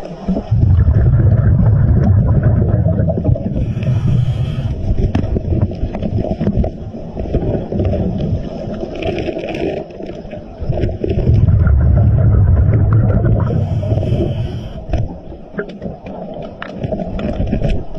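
A scuba diver breathing through a regulator underwater: long spells of low bubbling from exhaled air, each followed by a short hiss of inhalation, about three breaths. Small clicks and knocks are scattered through it.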